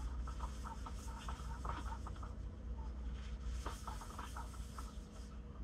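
Paper towel wiping grease out of a skillet, with light scratching and rustling in short irregular strokes. A steady low hum runs underneath.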